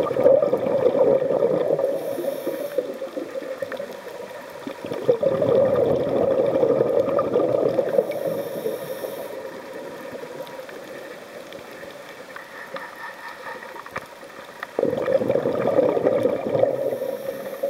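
Scuba diver's regulator exhaling bubbles underwater: three long bursts of bubbling about six to ten seconds apart, each followed by a short high hiss, with quieter water noise between them.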